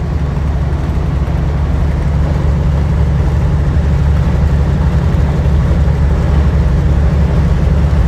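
Steady, loud, low rumble of engine and road noise inside a semi-truck cab at highway speed.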